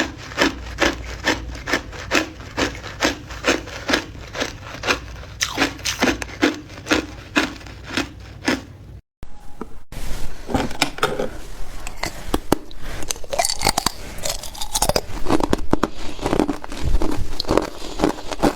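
Ice being chewed close to the microphone: steady, regular crunches about three a second, then after a brief break about nine seconds in, denser, irregular crunching and crackling.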